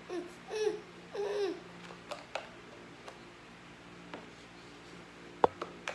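A one-year-old toddler babbling in three short, sing-song sounds in the first second and a half. After that come light clicks and, near the end, one sharp knock as the plastic snack cup is handled on the high-chair tray.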